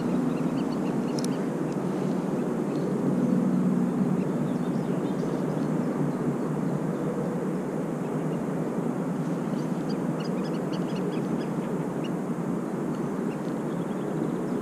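Steady rushing outdoor noise with a faint low drone running under it. A few faint high chirps come about ten seconds in.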